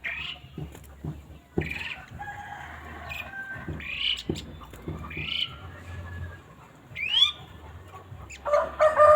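Sogok ontong (little spiderhunter) calling: short, sharp notes that sweep upward, repeated every second or two. A lower, fuller call comes near the end.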